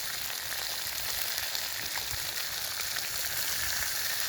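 Burger, bacon and fried eggs sizzling in a frying pan: a steady hiss with small scattered pops.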